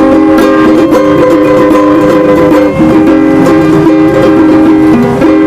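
Instrumental music with a strummed ukulele and held chord notes, playing on after the singing of a song has ended.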